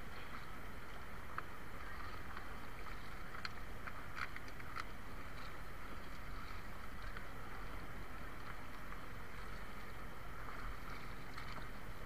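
Steady wind and sea noise aboard a small wooden outrigger fishing boat. A few light clicks and knocks come about four seconds in as the net line is hauled in over the side.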